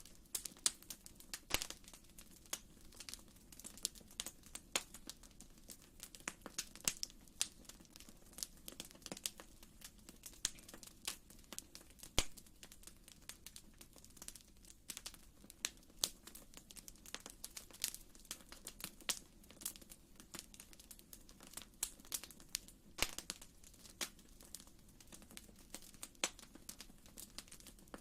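Wood fire crackling in a fireplace: irregular sharp pops and snaps, a few louder than the rest, over a soft steady low rumble.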